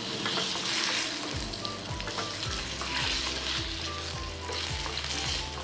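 Light-brown potato wedges frying in hot oil in a nonstick pan, sizzling steadily while a wooden spatula stirs and turns them; the sizzle swells each time they are moved.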